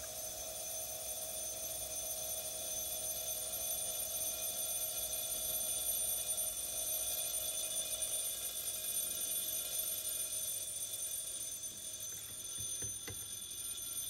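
Electric bell ringing continuously inside a bell jar. It grows steadily louder over the first few seconds as air is let back into the evacuated jar and carries the sound out again.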